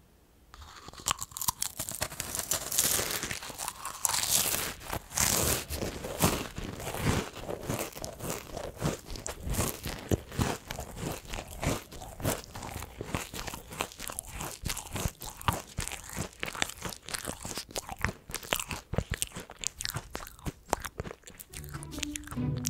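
Someone biting into and chewing crisp, dry meringue cookies, a dense run of brittle crunches starting about half a second in.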